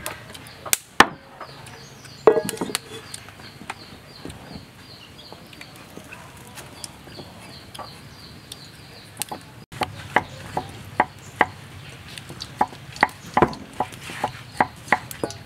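Sharp knocks and taps as hands work flour in a glass mixing bowl, the hand striking against the glass. Scattered at first, then coming in a quick, fairly even run of about two to three a second in the second half.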